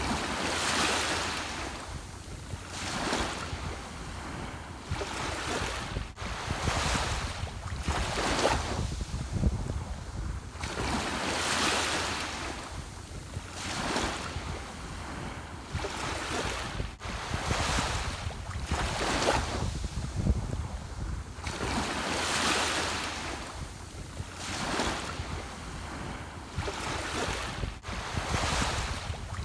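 Ocean surf: waves breaking and washing in, each surge swelling and fading every two to three seconds, over a steady low rumble.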